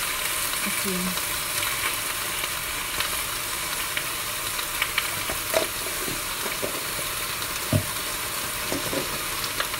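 Leafy greens sizzling in a hot stainless steel wok, a steady hiss with a few light clicks.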